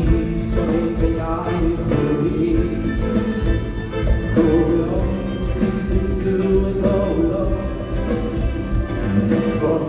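Live band music with a male singer's voice over it, cutting in suddenly at the start.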